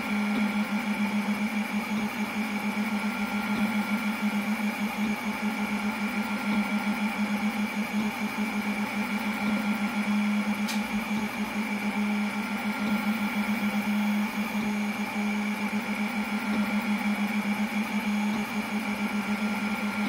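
Snapmaker 2.0 A150 laser engraving: a steady hum from the laser module's cooling fan, with a fainter whine from the stepper motors coming and going as the head moves.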